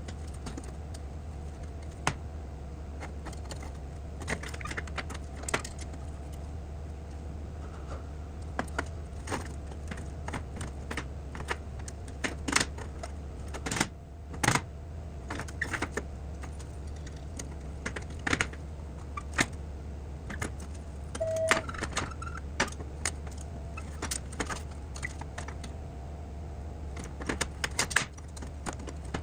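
Irregular light metallic clinks and taps of small metal parts and hand tools being handled, over a steady low hum. A brief squeak comes a little past the middle.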